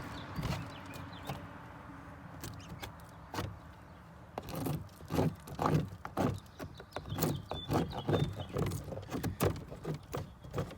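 A metal pocket tool scraping and knocking on a wooden hive frame, clearing old comb and packed pollen, in an irregular run of strokes about two a second from about four seconds in. A low steady hum fades out over the first couple of seconds.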